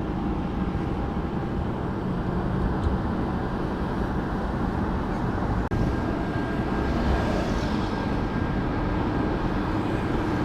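Vehicle on the move: a steady low rumble of engine and road noise, with a brief break about six seconds in.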